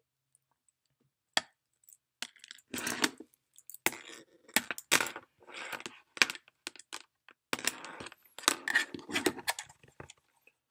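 Irregular handling sounds: sharp clicks and clatters mixed with short bursts of plastic rustling as multimeter test leads are pulled out and handled, starting with a single click about a second and a half in.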